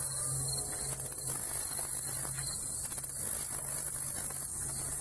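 Crickets chirring in a steady, high-pitched chorus that swells and eases every couple of seconds, over a faint low hum.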